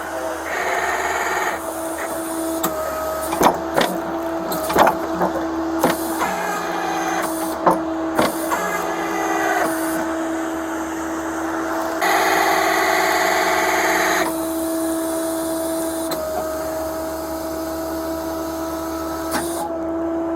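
A tow truck's engine and machinery running with a steady hum. Metallic clanks and knocks come between about three and nine seconds in, and a loud rushing hiss comes about twelve seconds in.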